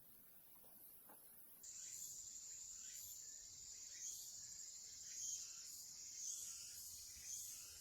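Faint chorus of singing insects, a steady high-pitched trill that starts abruptly about a second and a half in.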